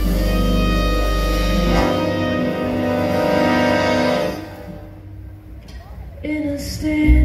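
Live big band music: sustained chords that die away a little past halfway, a short quieter lull, then the band comes back in with low notes near the end.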